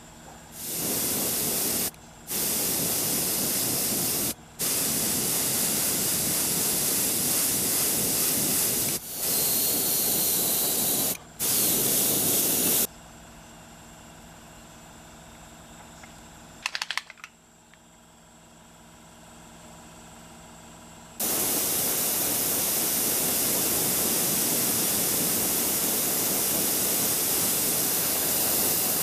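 Airbrush spraying in bursts: a loud hiss that starts and stops sharply, five short bursts in the first half, then one long continuous spray from a little past two-thirds through. A quieter steady hum sits under the gaps and drops out after a few clicks midway.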